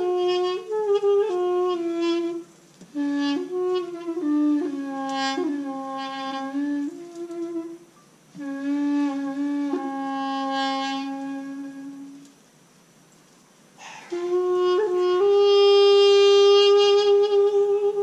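Balaban, a double-reed wind instrument, played solo: a slow melody of held notes with short breaks, ending on a long held note.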